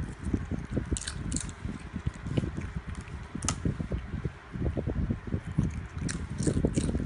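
Dog chewing and crunching potato chips: irregular chomps with a few sharp, crisp crackles, clustering near the end.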